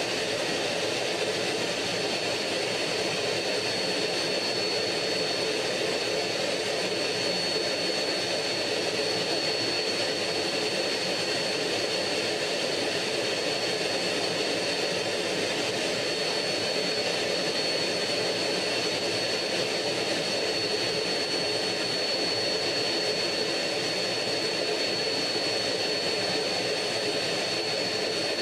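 Two-seat MiG-15UTI jet fighter's turbojet running steadily in flight, a constant high whine over a steady rush of air, heard from a camera on the wing.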